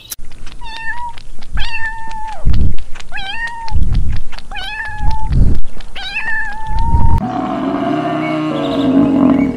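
A kitten meowing over and over: about five high meows, the second one long and falling at its end, with low thuds between them. Near the end a lower, steadier sound takes over.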